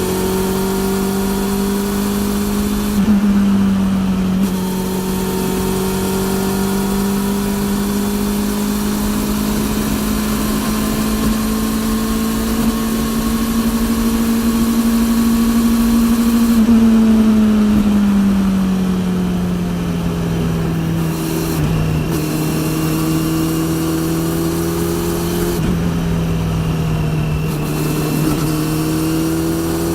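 Honda CB400 NC42 inline-four motorcycle engine running at a steady cruise through a TSR E02 slip-on exhaust, its pitch creeping up and then dropping a little past halfway as the throttle eases. Loud drive-chain noise runs underneath.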